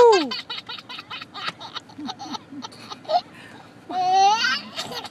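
Seven-month-old baby laughing hard: a high squeal at the start, then a string of short breathy laughing gasps, and another high, held squeal about four seconds in.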